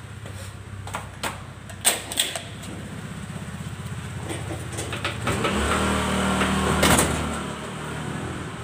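An engine running steadily, growing louder from about five seconds in, with a couple of sharp clicks about two seconds in and a sharp clack near the end.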